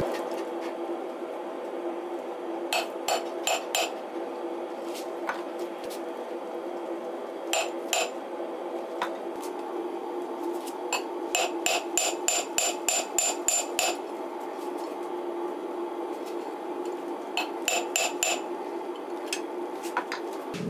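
Hand hammer striking red-hot coil-spring steel on an anvil, forging the jaws of knife tongs: short runs of ringing blows, about four, then two, then a quick run of a dozen, then four more. A steady hum runs underneath.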